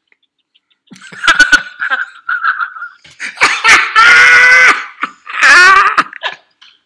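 Loud, high-pitched laughter in several bursts, the longest lasting about a second and a half.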